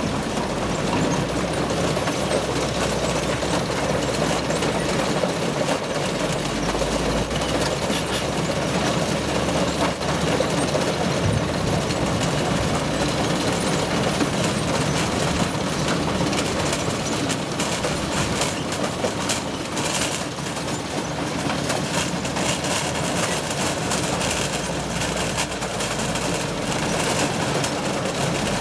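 Sugar beet rescreener running: its conveyor belts and vibrating shaker make a steady, loud mechanical din. Through it comes a continuous clatter of small knocks as beets and dirt tumble through the machine and off the conveyors.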